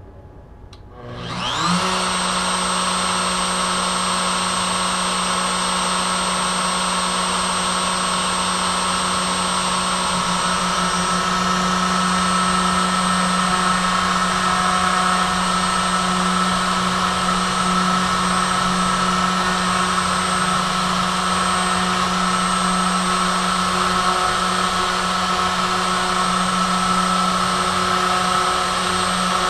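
Trim router serving as a CNC spindle, switched on about a second in: its motor whines up to speed, then runs steadily at high speed.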